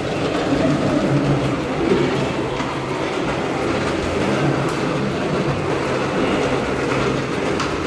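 Wheels of a rolling luggage trolley running over a hard corridor floor, a steady rumble.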